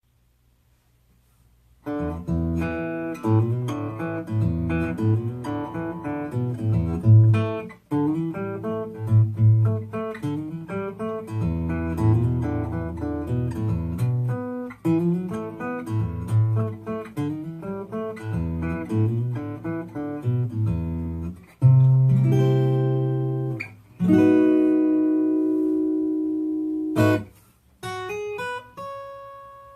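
Handmade Sitka spruce triple-O style acoustic guitar, amplified through its under-saddle pickup and an acoustic amp, finger-picked: a melody of picked notes over a moving bass line. Near the end a low bass note and then a chord are left to ring out, followed by a few high notes.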